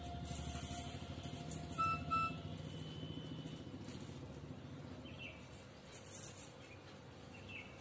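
Soft background music from a TikTok clip's soundtrack, with two short high notes about two seconds in; the music thins out toward the end.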